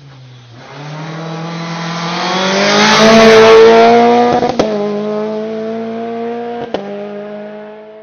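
Peugeot 206 rally car accelerating hard past the spectators, its engine note rising as it approaches and loudest about three seconds in. Twice, about four and a half and six and a half seconds in, a sharp crack comes with a gearchange, after which the revs climb again.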